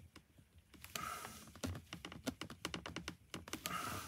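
Irregular small plastic clicks and taps as an intercom mounting clip is pushed and slid against a motorcycle helmet's shell.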